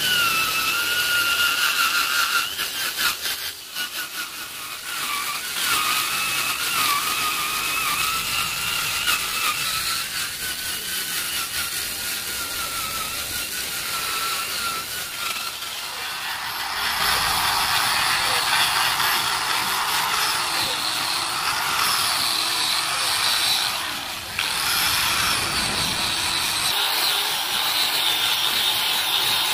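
Wood being power-sanded. A drill fitted with a sanding pad runs against the wood with a wavering whine. About halfway through, an angle grinder with a sanding disc takes over, louder and hissier, with a brief break a few seconds before the end.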